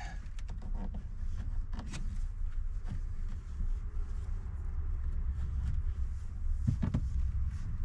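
Plastic pry bar working behind a car's dash trim panel: scattered light plastic clicks and taps, with a sharper run of clicks near the end, over a steady low rumble.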